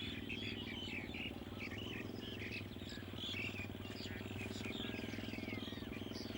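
Many short bird chirps, some gliding in pitch, over a steady low hum.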